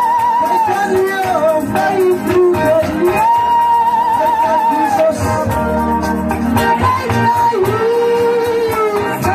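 Live amplified church music led by an electronic keyboard, with a steady beat, a low bass line and a melody of long held notes that waver in pitch.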